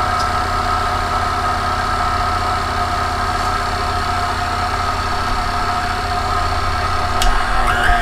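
KitchenAid stand mixer's motor driving a metal meat-grinder attachment, running with a steady whine over a low hum. Near the end a click is heard and the whine steps up in pitch as the speed lever is moved.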